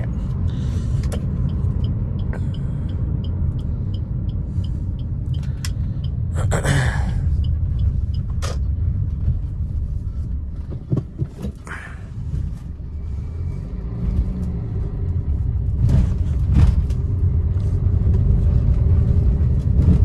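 Inside the cabin of a 2016 Maruti Suzuki Ciaz driving over a rough road: a steady low rumble with scattered knocks and rattles. The mechanic hears these as a rattling body noise and a small suspension noise that he suspects comes from a brake caliper.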